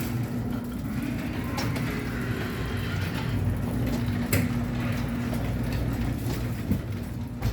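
Garage door opener running with a steady motor hum as the door travels, with a few clicks along the way.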